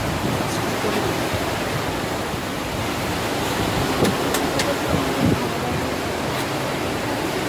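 Sea surf washing and breaking over rocks at the foot of a cliff: a steady rushing noise, with a couple of faint clicks about four seconds in.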